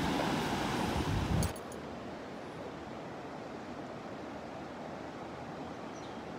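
Handling and wind rumble on the microphone as the recorder is picked up, with a few clicks about a second and a half in, where it cuts off sharply to a steady faint outdoor hiss.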